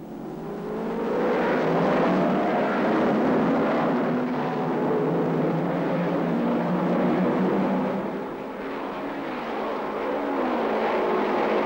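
A field of 1954 Formula One racing cars accelerating away from a standing start: several engines climb in pitch together over the first couple of seconds, then merge into a dense, sustained blend of engines as the pack runs down the straight.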